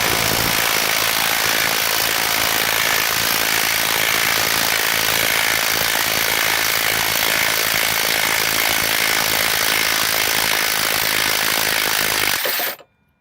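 Impact wrench (rattle gun) running continuously on a harmonic balancer puller's centre screw, drawing the worn balancer off the LS1 V8's crankshaft snout. It cuts off suddenly about twelve and a half seconds in, as the balancer comes free.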